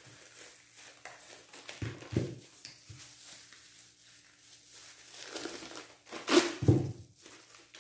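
Thin clear plastic bag rustling and crinkling as it is handled, with two soft knocks about two seconds in and the loudest crinkle about six seconds in.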